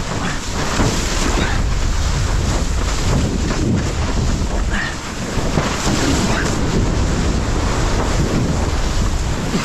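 Steady wind buffeting a GoPro's microphone over the rush of water beneath a windsurf board sailing through ocean waves.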